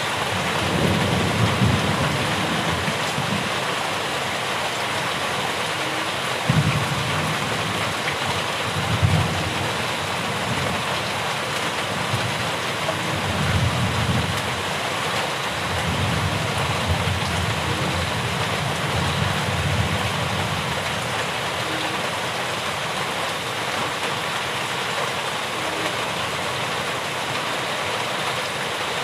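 Steady rain falling, an even hiss throughout, with several low rumbles that swell and fade in the first two-thirds.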